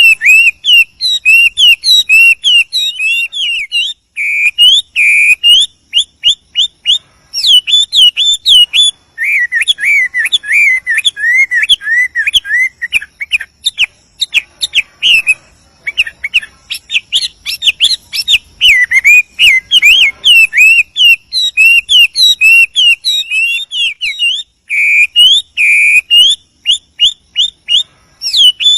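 Male Chinese hwamei (melodious laughingthrush) singing a long, varied song of rapid runs of repeated whistled notes and slurred phrases, with only brief pauses.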